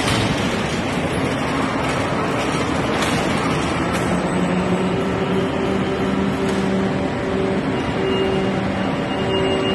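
Steady industrial machinery noise from a powered roller conveyor line moving a pallet of corrugated board into an automatic pallet strapping machine. A motor hum comes and goes from about four seconds in.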